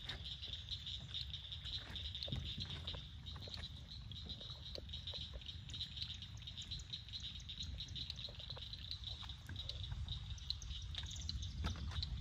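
A steady, high-pitched chorus of calling swamp animals, pulsing rapidly, over a low rumble, with scattered short clicks.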